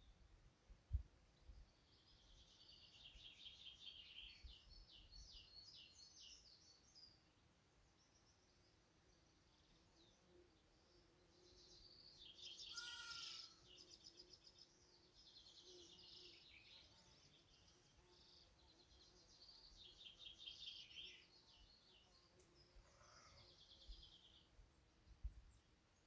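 Faint garden songbirds singing: repeated high trilling phrases every few seconds, over a faint low steady hum. A single sharp click about a second in.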